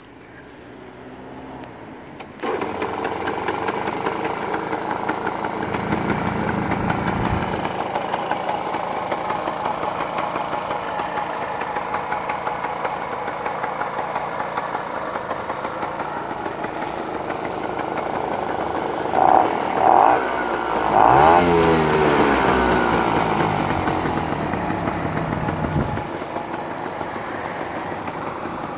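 1964 Puch Alabama moped's small two-stroke engine catching after about two seconds and then running steadily. Later come two short beeps, then a brief rev that rises and falls before it settles back to idle.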